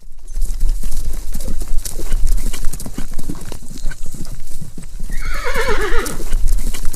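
Horse hooves clip-clopping in a quick, uneven patter, then a horse whinnying about five seconds in, the call falling in pitch with a shaky, quavering sound.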